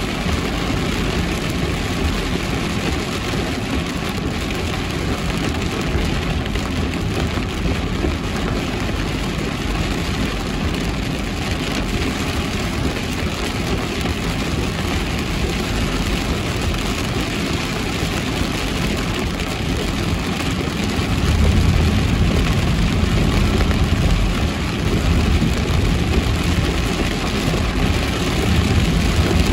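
Car driving on wet streets in heavy rain: steady rain and tyre noise over the running engine. The low rumble grows louder about twenty seconds in.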